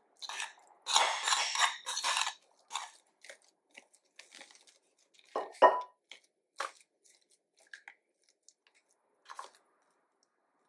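A spoon scrapes wet crushed pineapple out of a small ceramic bowl into whipped cream, with a dense run of scraping in the first couple of seconds. About halfway through there are two louder knocks. After that a metal palette knife spreads the pineapple cream over the tray with soft, scattered scrapes.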